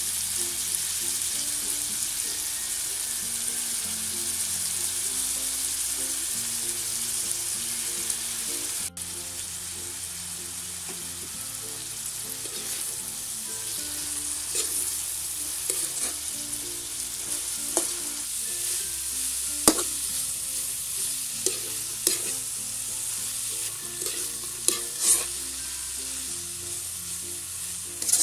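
Julienned carrots and green beans sizzling steadily in hot oil in a wok. In the second half, mung bean sprouts are stir-fried with a spatula, which scrapes and clacks against the wok every second or two over a quieter sizzle.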